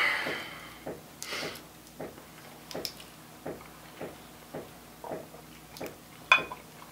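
A tin of dipping tobacco handled while a pinch is taken: soft rustles and scrapes, with a brief one about a second and a half in and another near the end, over faint small clicks about every half second.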